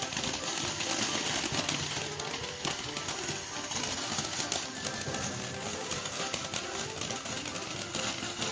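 Imperial Dragon 'Go Bananas' firework fountain spraying, a steady hiss thick with rapid crackling, with music playing underneath.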